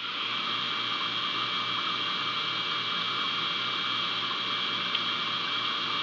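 Steady hiss with a low electrical hum and a thin high whine from a bird-cam microphone, with no owl calls. One faint tick about five seconds in.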